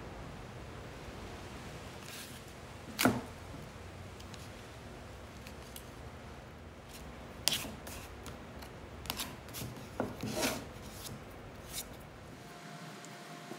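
Blue painter's tape being pulled off its roll, torn and pressed around a glued MDF cube, with a few short, sharp tearing and tapping sounds of handling, the loudest about three seconds in. A steady low background hum runs underneath.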